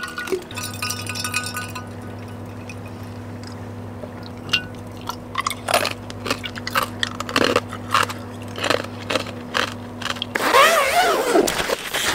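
Ice cubes clinking in a small cup as iced water is drunk, a few light clicks at a time, over a steady low hum. Louder rustling and handling noise takes over near the end.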